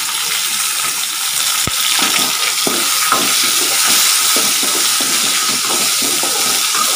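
Shallots, garlic, dried chillies and freshly added chopped tomatoes sizzling in hot oil in a metal kadai, with a spoon stirring and scraping against the pan in irregular strokes and one sharp tap nearly two seconds in.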